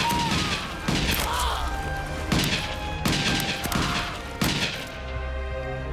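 War-film battle sound effects: a run of gunfire and explosions, sharp blasts coming every half second to a second. About five seconds in, the blasts give way to a low held orchestral chord.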